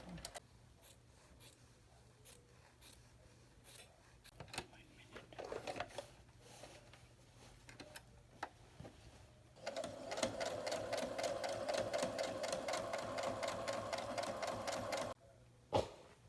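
Sewing machine stitching cloth mask fabric in a fast, even run of about five seconds that starts past the middle and stops abruptly. Scattered light clicks come before it, and one sharp click follows shortly after it stops.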